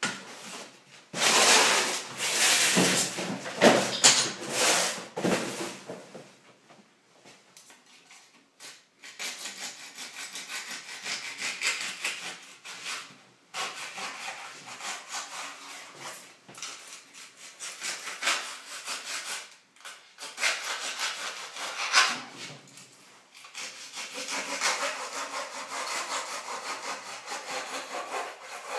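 Rustling and scraping of plastic wrapping, paper and tape being handled. First parts and papers are lifted out of a cardboard box, then protective tape and plastic are pulled and scraped off a pipe opening in a tiled wall.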